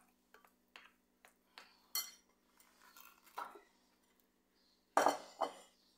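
A utensil clinking and knocking against a bowl or dish in a series of separate light strikes while a mixture is worked, with a sharp one about two seconds in and two louder knocks close together near the end.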